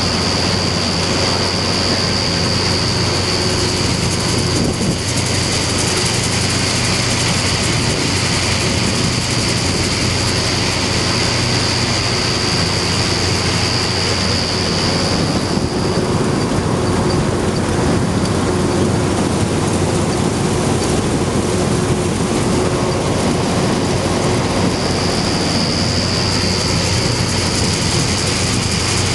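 Pull-type John Deere 360 combine threshing, its threshing drum, sieves and augers running with a steady mechanical din over the diesel engine of the Case IH 1056 XL tractor pulling it. A high steady whine sounds over it, fades out about halfway and comes back near the end.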